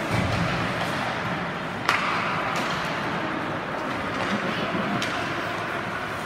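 Ice hockey arena din: steady crowd noise with a sharp crack of puck on stick or boards about two seconds in, and fainter clacks later.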